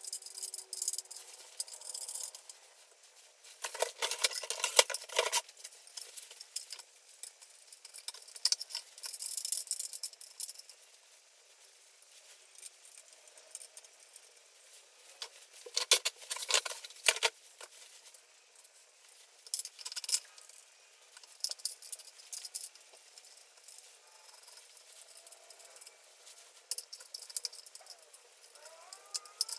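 Clicking and rattling of an Alesis Nitro Mesh electronic drum kit being assembled, as its mesh drum pads and their clamps are fitted onto the rack, in several separate spells of handling.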